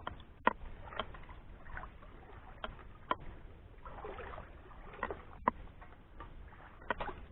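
Water sloshing and light splashing as a person wades through shallow swamp water, towing a floating metal bucket. Short sharp clicks and splashes come scattered through it.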